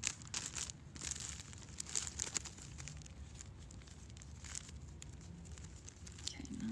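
Clear plastic zip-top sample bag crinkling as it is handled: irregular crackly rustles, busiest in the first couple of seconds and then coming only now and then.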